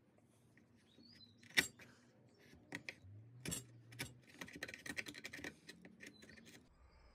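Wood chisel paring waste from a drilled mortise in hardwood by hand: a few sharp clicks and faint scraping, the loudest click about one and a half seconds in, then a quick run of scratchy clicks about four to five seconds in.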